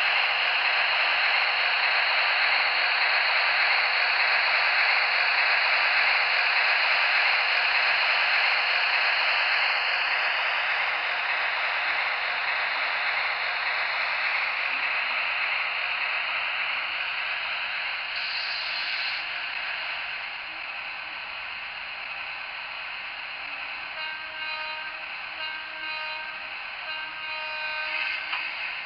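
Electrotren model of a Renfe class 251 electric locomotive running along the track: a steady rushing rolling noise that fades over the first half as the train moves away. Near the end come several short pitched toots.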